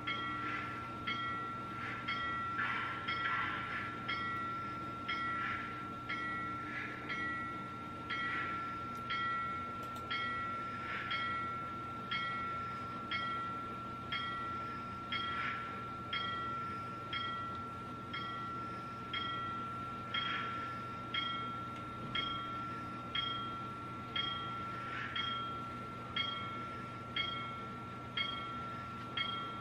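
Simulated steam locomotive sound from a QSI Titan-U DCC sound decoder in a model Union Pacific 2-8-2 Mikado, played through its small onboard speakers: a slow, even beat a little faster than once a second, each beat with a short metallic ring, over a steady high whine.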